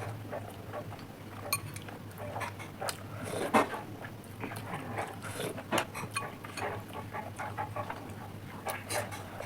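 Eating at the table: small clinks of cutlery on plates and mouth noises of chewing, scattered irregularly over a steady low hum.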